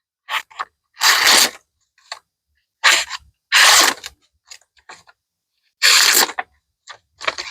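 A kayak-pattern pocketknife's D2 steel blade cutting through material in a series of short, crunchy slicing strokes, about six in all, with pauses between.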